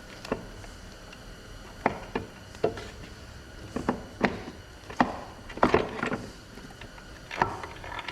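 About a dozen irregular knocks and clacks as transmission parts and tools are handled and set down during an automatic transmission teardown, with a busy cluster about five to six seconds in.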